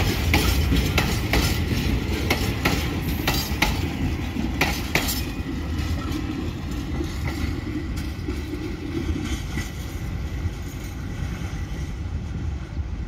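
Loaded iron ore hopper wagons rolling past, with a steady low rumble and a regular clickety-clack of wheels over the rail for the first five seconds or so. Once the last van has passed, the clacking stops and the rumble fades as the train moves away.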